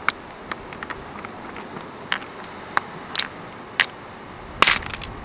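Flint being struck against stone to break it open: sharp, irregular stone-on-stone knocks, with a louder cluster near the end, over steady background noise.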